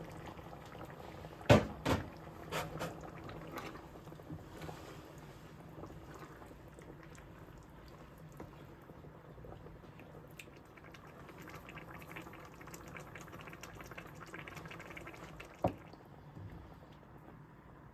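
Kitchen clatter: two sharp knocks about a second and a half in, a few lighter clicks after them, and one more knock near the end, over a low steady background.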